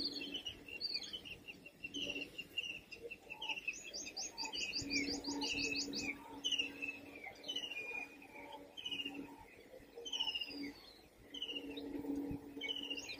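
Birds chirping repeatedly, short high calls with a quick run of rapid high notes about four seconds in. A faint low steady hum comes and goes underneath.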